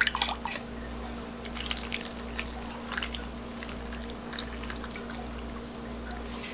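Thick seasoning sauce poured from a glass bowl over mackerel and vegetables in a frying pan, with soft wet splatting and scattered light clicks and scrapes as a spoon works the sauce out of the bowl.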